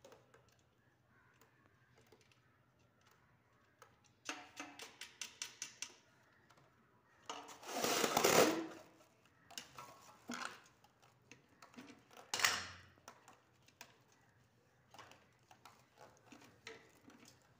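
Handling noises from a new ceiling fan's wiring being fitted through its metal down rod: a quick run of about ten clicks, then a louder scraping rustle of a couple of seconds, and a shorter one a few seconds later.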